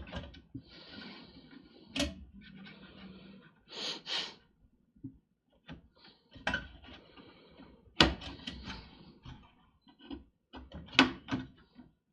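Hands working among computer parts, with memory-module latches, plastic and metal giving a string of sharp clicks and knocks and some rustling between them. The loudest clicks come about two, six and a half, eight and eleven seconds in.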